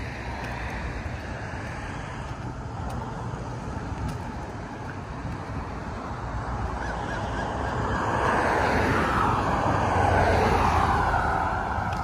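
Road traffic on a multi-lane street: a steady rush of tyres and engines, swelling as a vehicle passes close by about two-thirds of the way through, then easing off.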